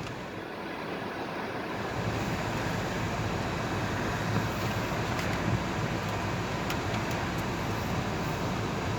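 A car driving, with steady road and tyre noise heard from inside the cabin, building a little over the first couple of seconds and then holding steady.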